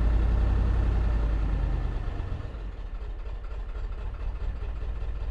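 A 2002 Ford F-250's 7.3 Power Stroke V8 turbodiesel is idling rough, "very not happy," with a heavy low rumble that eases and quiets about halfway through. The rough running is the symptom that the owner traces to a failing injector driver module (IDM).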